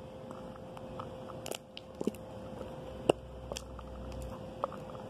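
Scattered small clicks and crackles of a plastic glue bottle being squeezed and handled over a plastic bowl, the sharpest click about three seconds in, over a faint steady hum.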